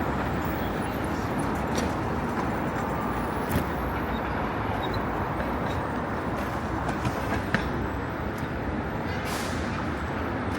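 Steady vehicle rumble with a few light clicks and a brief hiss about nine seconds in.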